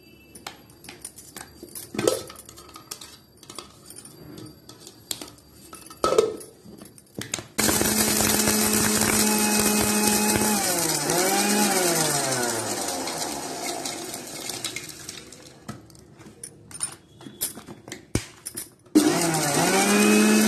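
A few knocks and clicks, then an electric mixer grinder running with peanuts and sesame seeds in its steel jar, grinding them to powder. The motor starts about a third of the way in, slows and picks up again briefly, then winds down. After more knocks it starts again sharply near the end.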